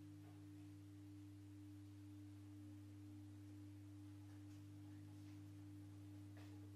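Haeger Hexafan six-blade ceiling fan running: a faint, steady electric hum from its motor, with a low drone and a higher steady tone above it.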